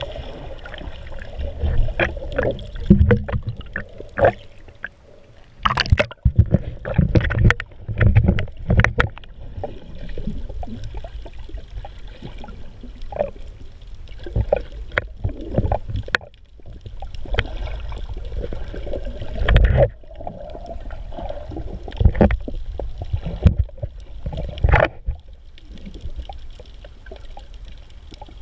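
Muffled underwater water movement, sloshing and gurgling against the camera, with irregular knocks and thumps throughout and a low rumble beneath.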